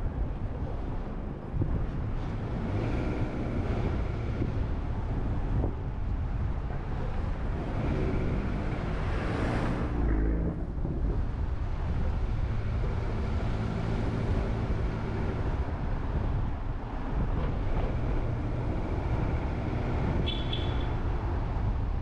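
Car driving along a city street: steady engine and tyre-on-road noise, with a brief swell of noise about nine seconds in and a short high chirp near the end.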